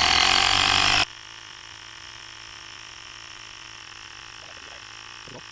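Compressed air hissing from an air hose into a motorcycle tire being inflated to seat the bead, cutting off suddenly about a second in; then a faint steady hum.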